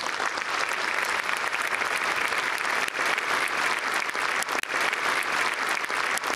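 A crowd of spectators applauding: steady clapping from many hands at once.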